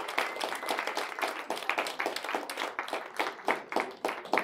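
Audience applauding with hand claps, the clapping thinning out near the end.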